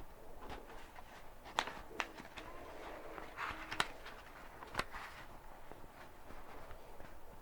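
Paper pages of a book being turned: a few crisp snaps of paper with a short rustle between them.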